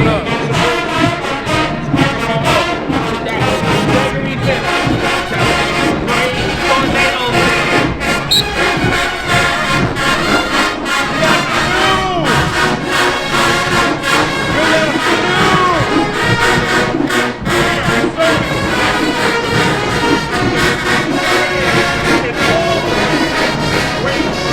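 Marching band's brass section, trombones and trumpets to the fore, playing loud and without a break, with crowd voices underneath.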